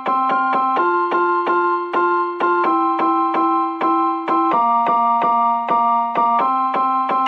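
Background music on a keyboard: a steady run of quick repeated notes, about four a second, over held lower notes that shift twice.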